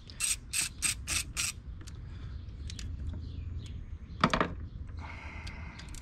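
Hand ratchet on a long extension clicking as it is turned back and forth: about six quick, evenly spaced clicks in the first second and a half, then a few faint ticks. A brief, louder pitched sound comes about four seconds in.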